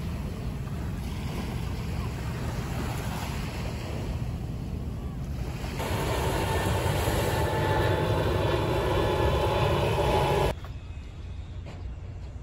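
Sea surf washing on a shore, with wind rumbling on the microphone. The surf grows louder about six seconds in and stops abruptly about two seconds before the end, leaving a quieter low wind rumble.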